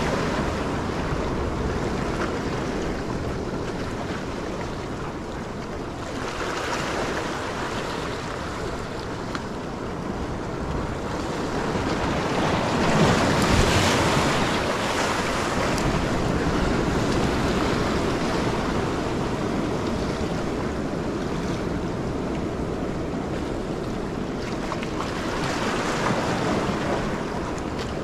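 Small sea waves washing and splashing over shoreline rocks, swelling in several surges, the strongest about halfway through, with wind buffeting the microphone.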